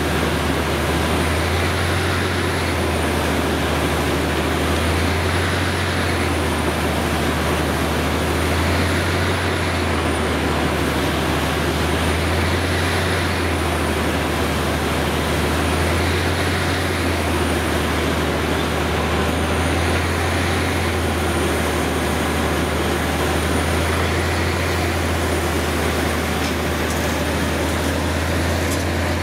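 Truck-mounted borewell drilling rig with an ELGi air compressor running steadily at work: a loud deep engine-and-compressor drone that throbs slowly every three to four seconds, over a constant rushing hiss.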